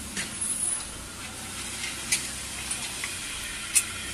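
A few sharp light clicks and taps as hands handle the steel rollers of a roller heat press, the sharpest near the end, over a steady faint hiss.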